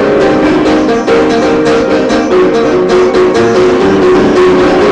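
Upright piano played by hand, a steady stream of notes and chords with frequent fresh attacks, loud and close to the microphone.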